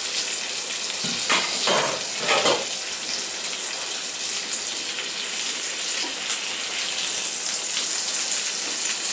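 Stuffed green chillies frying in oil in a kadhai: a steady, loud sizzle, with a few short, sharper crackles between about one and two and a half seconds in.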